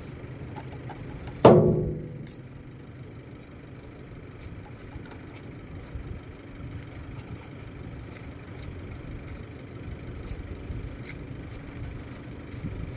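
Steady low hum of an idling engine, with scattered faint ticks. About a second and a half in, one sudden loud ringing sound with several pitches cuts in and dies away within half a second.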